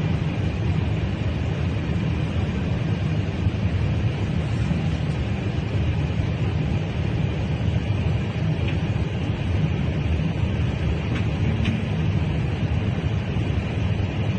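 Steady low rumble with a hiss above it, the running noise of a vehicle heard from inside its cabin, with a few faint ticks.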